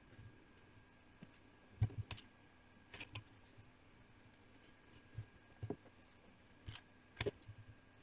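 Scattered light clicks and taps from soldering work: the soldering iron tip and wires knocking against the MOSFET's legs and the metal heatsink.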